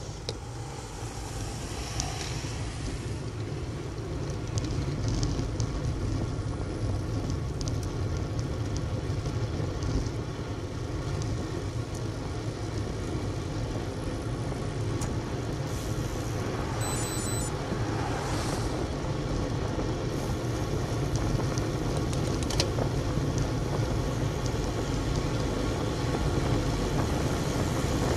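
Wind rushing over a bike-mounted camera's microphone along with tyre noise on tarmac, a steady low rumble that grows louder as the bicycle speeds up. About 16 to 18 seconds in, a car passes, with a brief high-pitched chirp at the same time.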